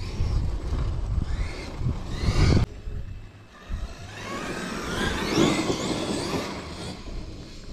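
Arrma Outcast 8S electric RC truck's brushless motor and drivetrain whining, the pitch rising and falling several times as it accelerates and lets off. For the first few seconds a heavy low rumble from wind or handling noise on the microphone covers it.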